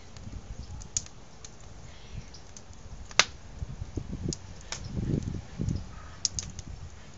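Wood fire crackling in a metal fire ring: irregular sharp pops and ticks, with one loud snap about three seconds in. A low rumble swells around five seconds in.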